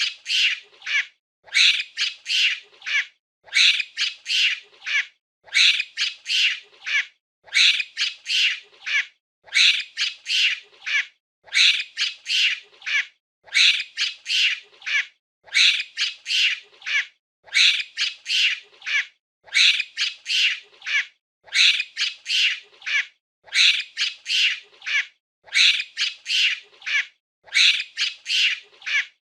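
A monkey giving short, high-pitched calls in quick clusters of three or four. Each cluster lasts about a second, with a gap, and the pattern repeats very evenly about every two seconds.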